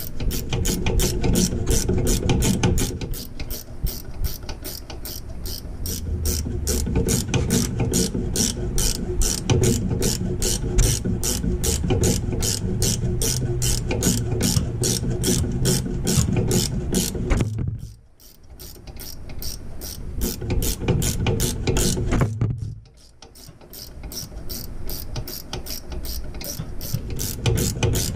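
Ratchet wrench clicking steadily, about three clicks a second, as it backs off the 14 mm nut on the top stud of a front shock absorber. The clicking breaks off twice briefly about two-thirds of the way in.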